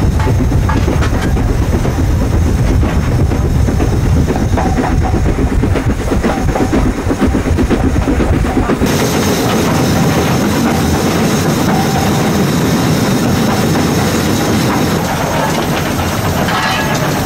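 GNR N2 steam tank locomotive running under steam, heard from its footplate: a loud, dense clatter of exhaust, motion and wheels on the rails. About nine seconds in, the deep rumble drops away abruptly and the hiss gets brighter.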